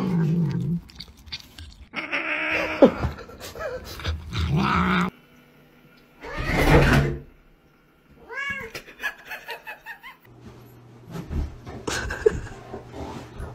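Domestic cat meowing and yowling in several separate calls, with short quiet breaks between them.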